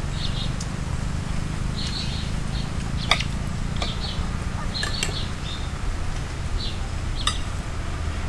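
Small birds chirping in short, repeated calls, with a few sharp clicks of spoons on plates. A steady low rumble runs underneath.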